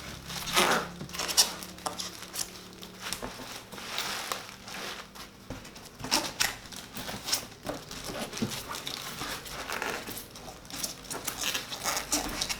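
Packaging being handled during an unboxing: crinkling and rustling, with scattered knocks and clicks.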